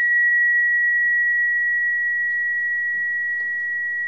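Sonotest (Cosmic Tune) tuning fork ringing with one clear, steady high tone that slowly fades.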